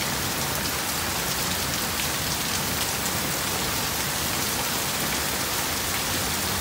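Heavy rain falling steadily: a dense, even hiss of drops pattering on surfaces.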